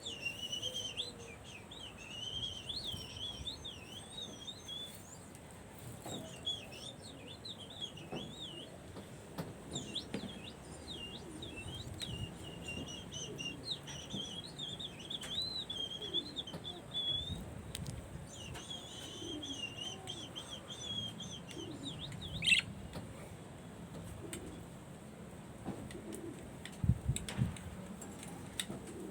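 Budgerigars warbling and chattering almost without pause in a quick, wavering twitter, with one sharp, loud call a little over two-thirds of the way through and a few soft low thumps near the end.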